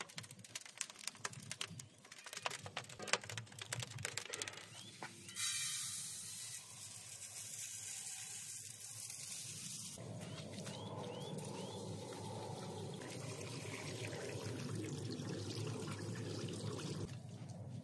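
Wood fire crackling in a brick oven. About five seconds in, dry long-grain rice pours into a metal bowl with a steady hiss, and from about ten seconds water splashes steadily into the bowl of rice.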